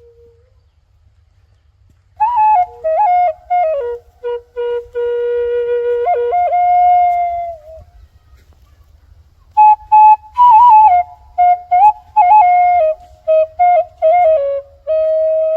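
Solo flute playing a slow melody in two phrases, with a pause of about two seconds between them; some notes carry quick ornamental turns and bends.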